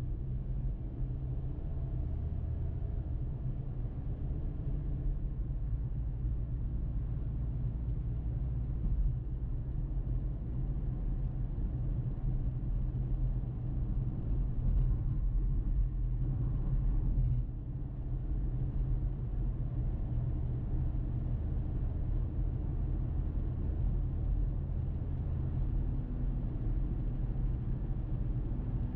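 A car driving along a road: a steady, low rumble of road and engine noise, swelling slightly for a couple of seconds past the middle.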